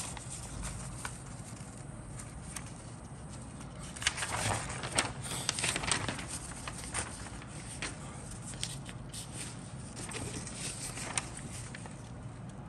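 Paper instruction sheet rustling and crinkling as it is unfolded and smoothed flat by hand, loudest about four to seven seconds in.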